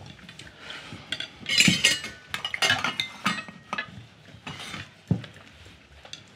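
Cutlery and tableware clinking and scraping on plates, with a metal cooking pot set down on the table: a quick run of sharp clinks and short scrapes, busiest in the middle.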